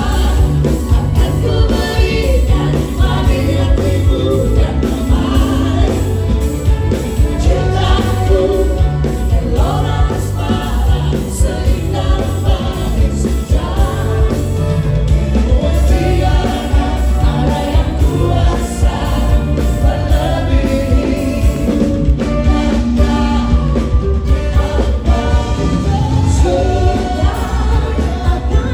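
Pop band music with singing over a heavy bass line and drum strokes, played loud and without a break.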